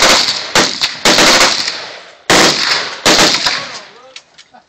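Gunfire at a shooting range: five loud reports or bursts of shots, the first three in quick succession and two more over a second later. Each one trails off in a long echo.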